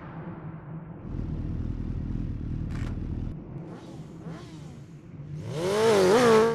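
Motorcycle engine rumbling low, then revving hard near the end, its pitch climbing and wavering as the rear wheel spins on the salt.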